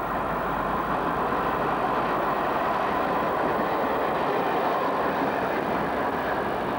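British Rail Class 128 diesel parcels unit running through the station and passing close by: a steady, loud mix of diesel engine and wheels on the rails.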